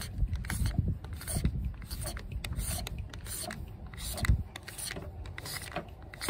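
Electrical cable being pulled and fed by hand, rubbing and scraping in irregular short strokes, with a low rumble underneath and one thump a little past four seconds in.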